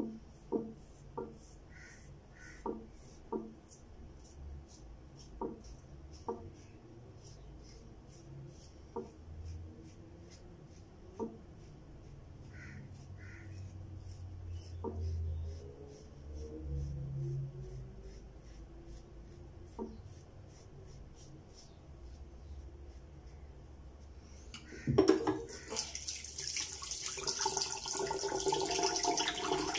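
Safety razor scraping through shaving cream and stubble in quick short strokes, with scattered light ticks. About 25 seconds in, a tap is turned on and water runs loudly into the sink.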